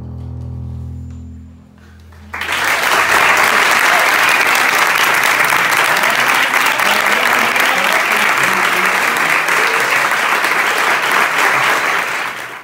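Two double basses hold a final low bowed note that fades away, then about two seconds in an audience starts applauding loudly, with a few voices calling out among the clapping.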